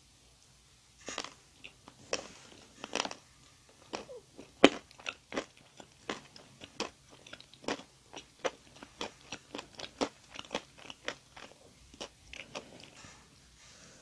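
Close-up eating sounds of a chocolate-glazed, jam-filled doughnut being bitten and chewed: a run of sharp mouth clicks and smacks about twice a second, starting about a second in, the loudest about four and a half seconds in.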